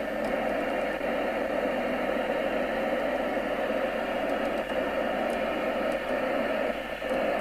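Steady static hiss from a UK FM CB radio's loudspeaker while it sits on a channel with no clear signal.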